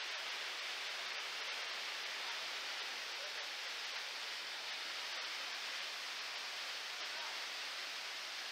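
Waterfall pouring into its plunge pool: a steady rush of falling water, more hiss than rumble.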